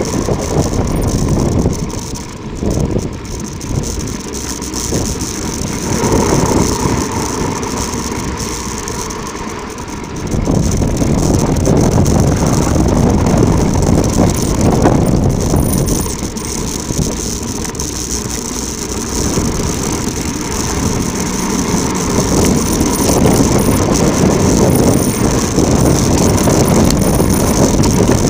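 Bicycle rolling fast downhill over a rough volcanic track: continuous rumbling tyre and frame noise mixed with wind rushing over the microphone, swelling and easing as the speed changes.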